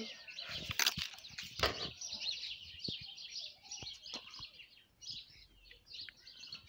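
Small birds chirping continuously in the background, with a few sharp rustles and handling noises from grass being pushed aside close to the microphone, mostly in the first two seconds.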